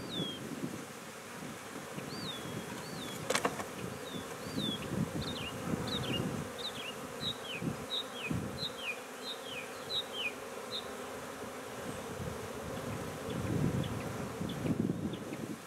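A mass of swarm honey bees buzzing over an open nuc box as they are worked off a screened frame, a steady, fluttering hum. A single sharp click comes about three seconds in, and short high chirps that fall in pitch repeat about twice a second through the first ten seconds or so.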